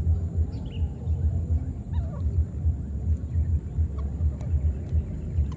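Wind buffeting the microphone as an uneven low rumble, with a few short, high calls over it, one about two seconds in that falls in pitch.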